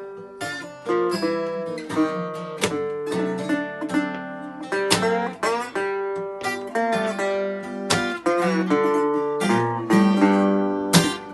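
Acoustic guitar playing an instrumental break in a blues song: a busy run of plucked notes, each ringing on briefly.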